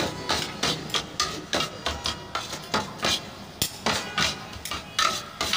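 Metal tongs and a spatula clacking against a large steel tray while cooked shawarma chicken is worked in it, about three sharp metallic clacks a second.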